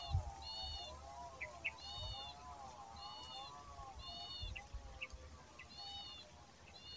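Wild animal calls: a short high call repeating about once a second over lower wavering calls, with a steady high whine that stops about two-thirds of the way through. A low thump near the start and a couple of softer ones later.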